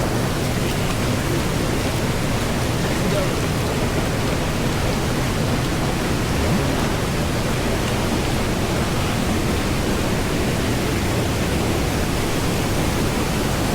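Waterfall's falling water rushing steadily, an even noise that keeps on without a break.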